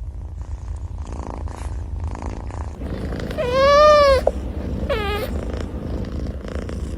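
A domestic cat purring steadily, with one long meow that rises and falls about three and a half seconds in and a shorter meow about a second later.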